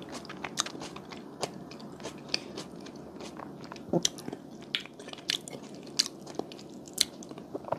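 Close-miked mouth sounds of someone chewing a soft, sticky green grape mochi: wet smacks and sharp little clicks at irregular intervals.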